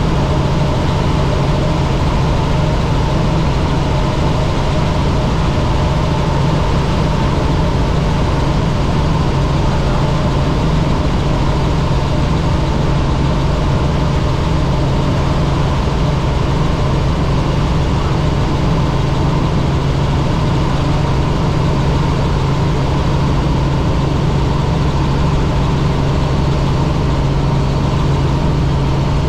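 Helicopter in flight: a steady, loud drone of rotor and turbine, with a strong low hum and a few steady higher tones that do not change.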